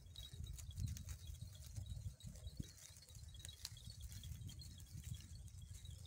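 Goats grazing, with faint scattered clicks of grass being cropped over a low, uneven outdoor rumble.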